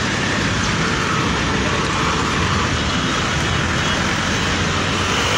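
Steady traffic noise of a busy roadside, with vehicle engines and tyres running past in an even wash.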